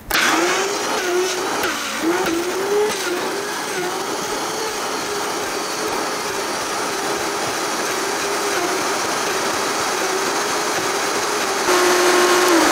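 High-powered blender starts abruptly and runs, grinding a thick raw cauliflower, cashew and zucchini mash while a tamper pushes it down onto the blades. The motor pitch wavers as the load shifts, then runs louder and steadier near the end.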